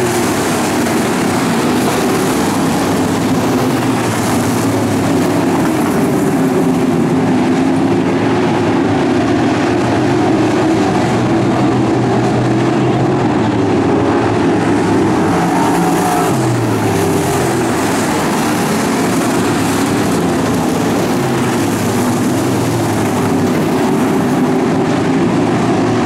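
A field of pro stock dirt-track race cars' engines running at racing speed, a steady loud drone whose pitch keeps rising and falling as cars accelerate down the straights and lift for the turns.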